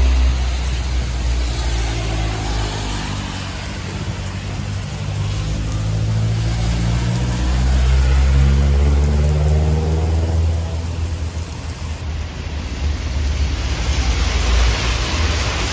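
Steady rain hissing on a wet street, with cars driving past on the wet road, their engine and tyre noise rising and falling. The rain hiss grows louder in the last few seconds.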